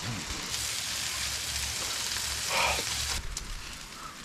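Food sizzling as it fries in a pan on a portable propane camp stove, a steady hiss with a brief louder noise about two and a half seconds in; the hiss turns fainter about three seconds in.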